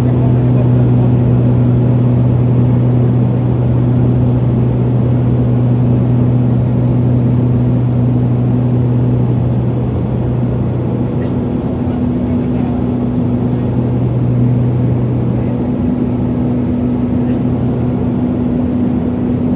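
Cabin noise of a Harbin Y-12E's twin turboprop engines and propellers in descent on approach to land: a loud, steady propeller drone, a low hum with an overtone above it, over rushing air. The low hum eases slightly about fifteen seconds in.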